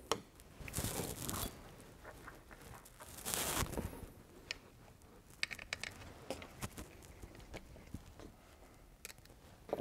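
Handling noises while reassembling an air rifle: two brief scraping rustles in the first few seconds, then scattered light clicks and taps of tools and small parts on the bench.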